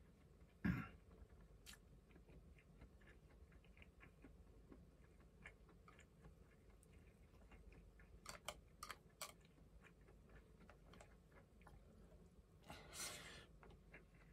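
Quiet eating sounds: faint chewing with scattered light clicks of chopsticks against the bowls, a sharper clack about a second in and a cluster of clicks around eight to nine seconds in. A short soft swish comes near the end.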